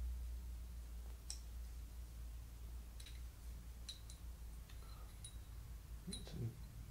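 Sparse faint clicks and ticks as a small black tightening knob is unscrewed from a steel resaw bar and its small parts are handled, over a low steady hum.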